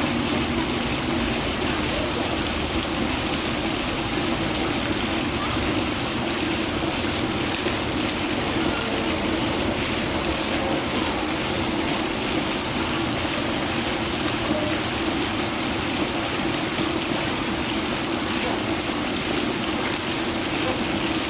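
Steady rushing noise, even in level throughout, with only faint scattered sounds over it.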